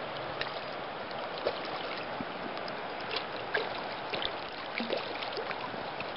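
Creek water running steadily, with a scatter of light ticks and small splashes.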